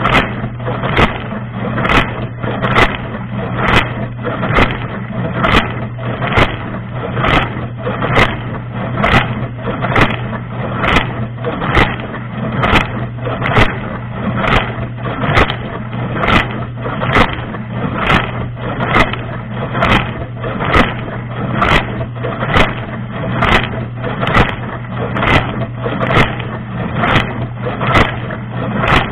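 Dishwasher running its wash cycle, heard from inside the tub: a steady hum from the pump motor under a constant rush of water spray. Water beats against the microphone in a regular surge just under once a second.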